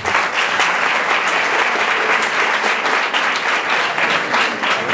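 Audience applauding: dense clapping that starts at once and eases off near the end.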